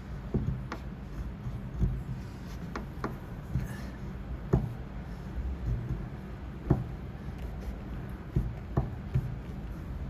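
Light, irregular taps and clicks of dent-repair tools working a car door panel, about ten in all, over a steady low hum.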